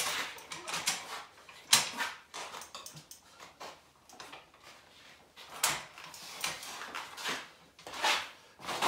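Irregular metal clanks and knocks from a Rabaconda tire changer's arm and tire levers as a knobby dirt bike tire is worked off its rim. The loudest knock comes a little under two seconds in.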